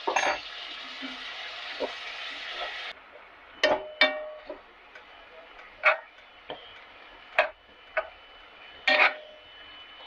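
Meat and onions sizzling in a heavy casserole pot, the hiss dropping away suddenly about three seconds in. A metal spoon then stirs and knocks against the pot, giving about six sharp, ringing clinks at irregular intervals.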